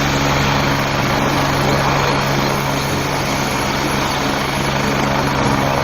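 Helicopter sound effect: steady rotor and turbine noise over a low, even hum.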